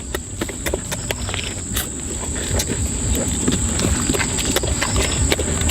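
Irregular sharp clicks and crackles, several a second, over a steady high-pitched insect drone.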